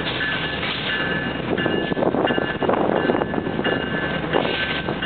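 BNSF GE ES44 'GEVO' diesel-electric locomotives running past at close range, a steady rumble of engines and rolling wheels. High-pitched squealing tones come and go over it.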